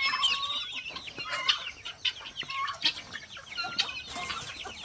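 A penned flock of guinea fowl and other poultry calling together: many short, overlapping calls and clucks.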